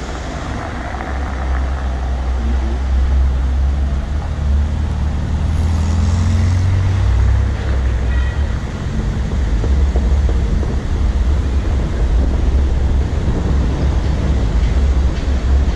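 Steady low rumble of a car driving slowly, engine and road noise heard from the car itself.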